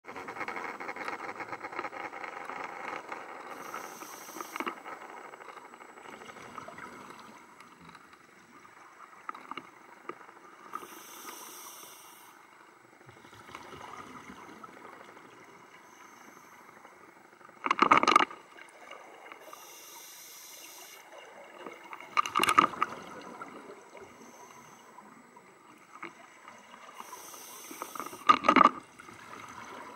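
Scuba divers breathing through their regulators underwater: a thin hiss with each inhalation and bursts of bubbles with each exhalation, in a slow breathing rhythm. The three loudest bubble bursts come in the second half, about four to six seconds apart.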